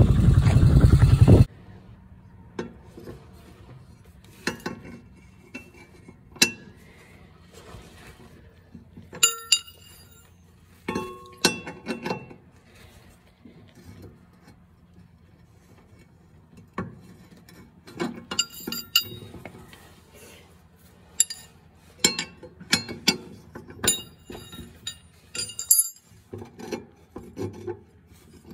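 A lawn mower engine runs for the first second and a half, then cuts off abruptly. Scattered metallic clinks and knocks follow as a mower blade is refitted by hand to its spindle under the deck.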